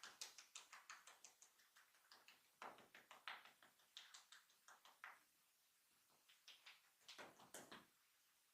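Rapid light hand taps of a barber's massage, landing on the person in quick runs of about five or six taps a second with short pauses between runs.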